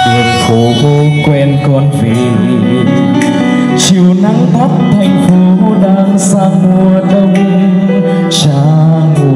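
A male singer sings a slow Vietnamese ballad into a microphone over a recorded backing track, both played through PA loudspeakers.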